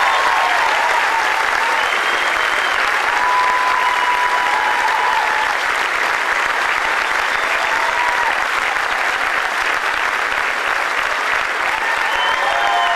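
Crowd applauding steadily, with a few voices calling out over the clapping now and then.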